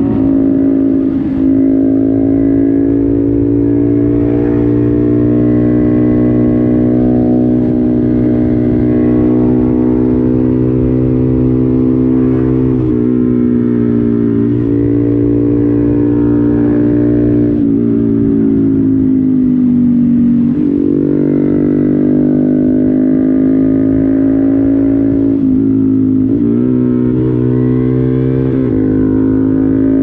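Honda Grom MSX125's single-cylinder four-stroke engine running under way, its note holding steady for long stretches and dropping and rising again a few times as the throttle and gears change.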